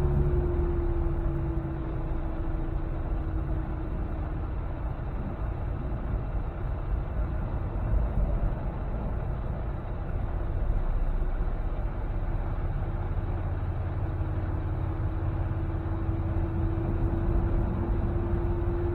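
Steady engine drone and road noise inside a semi-truck's cab on the move, with a steady whine that sags slightly in pitch in the first few seconds and climbs back near the end.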